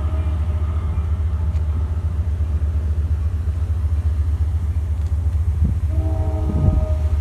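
Steady low rumble of a ferry under way, its engines and wind buffeting the microphone on the open deck. A faint held tone of several pitches sounds for about a second near the end.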